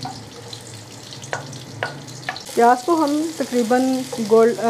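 Chopped onions sizzling in hot oil in an aluminium kadai, stirred with a wooden spoon that knocks against the pan a few times. About two and a half seconds in, a woman's voice starts and is the loudest sound.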